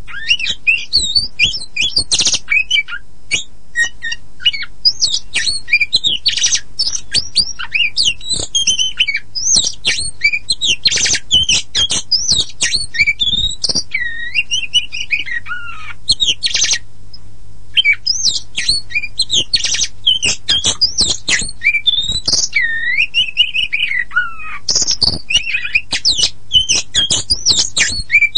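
Oriental magpie-robin of the kacer poci variety singing a long, fast, varied song of whistles, sliding notes and harsh scratchy calls, with a short pause about seventeen seconds in.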